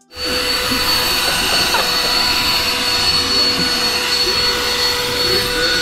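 Handheld cordless vacuum cleaner running steadily with a high whine, starting suddenly just after the start.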